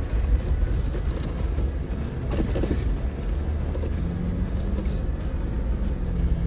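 Off-road vehicle's engine running at low speed as it crawls over a rutted trail, a steady low rumble with a brief rattle or creak about two and a half seconds in. A steady low engine note joins from about four seconds.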